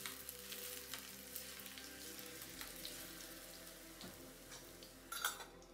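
Batter-coated stuffed boiled eggs sizzling and crackling as they deep-fry in hot oil in a shallow pan. Light clicks and scrapes come from a steel spoon turning them over, and there is a brief louder knock near the end.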